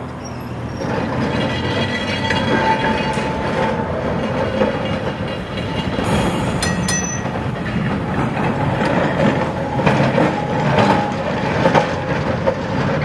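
Vintage electric trams rolling on steel rails, wheels clacking over the track joints and points. Their wheels give short squeals twice, a few seconds apart.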